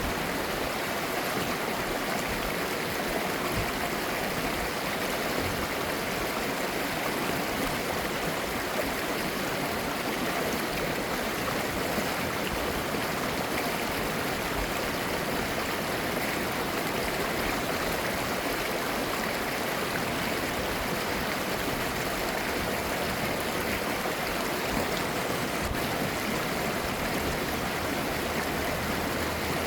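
Clear mountain-valley stream babbling steadily over rocks.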